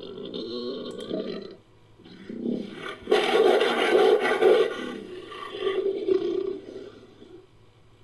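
Made-up creature call sound effect, mixed from a jaguar recording and other beast sound effects: a string of about four deep animal calls. The loudest starts abruptly about three seconds in and lasts nearly two seconds.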